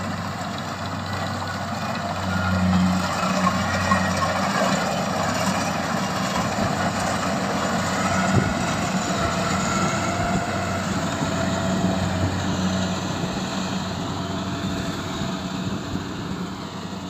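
Rice harvesting machine running steadily: a constant engine hum under the noise of its working parts, a little louder from about two seconds in.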